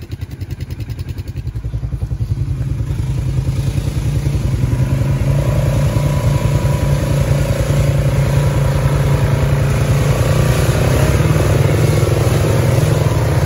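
ATV engine running under throttle, its revs and loudness climbing over the first few seconds and then holding steady.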